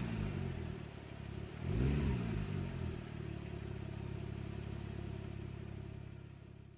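Porsche 997 Turbo MKII twin-turbo flat-six through an EVOX SuperSport stainless steel aftermarket exhaust, settling from a rev, given one short throttle blip about two seconds in, then idling steadily before fading out at the end.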